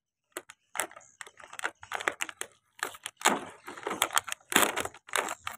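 Plastic toy packaging being torn and pulled open by hand: irregular crinkling, crackling and clicking, sparse at first and busier from about halfway through.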